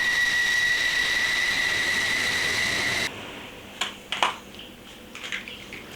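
Toy fighter jet's electronic jet-engine sound: a steady high whine over a hiss that cuts off suddenly about three seconds in. A few faint clicks of the toy being handled follow.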